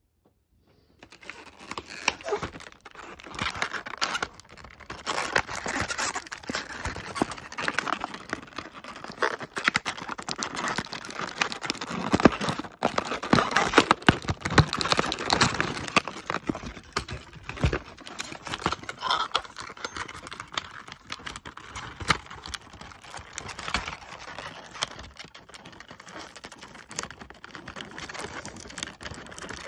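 Cardboard and plastic window-box packaging of diecast model cars being handled: rustling and scraping with a steady run of small clicks and taps.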